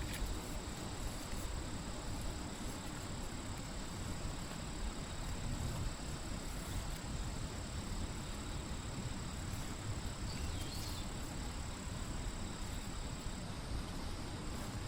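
Field insects trilling on one steady high note, over a low rumbling background noise.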